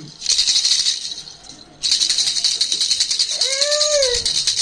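A jhunjhuna, a hand-held baby rattle with three small bells, shaken fast in a bright continuous jingle; it stops briefly after about a second and starts again near the two-second mark. A short rising-and-falling cry sounds about three and a half seconds in.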